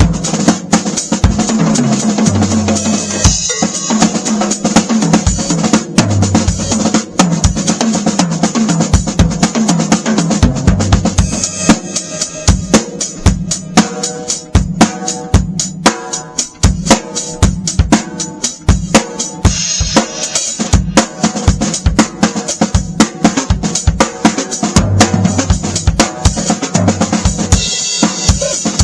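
Drum kit played in a busy groove around a 14x8 basswood snare drum (Beatello Ace of Spades 1408), with sharp snare hits and rimshots over bass drum strokes, several strikes a second without a break.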